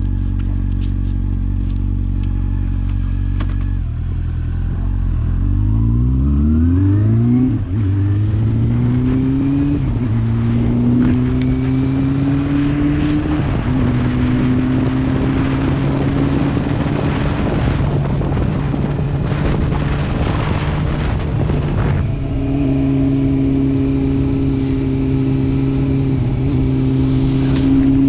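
Motorcycle engine idling for about four seconds, then pulling away and accelerating, its pitch climbing and dropping back at each of several gear changes, before settling into a steady cruise.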